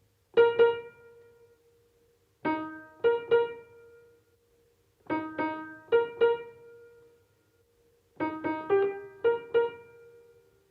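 Piano playing four short phrases of two to five notes each, every note struck and left to ring away, with brief gaps of near quiet between the phrases.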